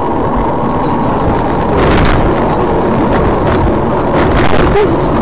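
Steady road and engine noise of a moving car as picked up by a dashcam, with a few brief knocks, the loudest about two seconds in.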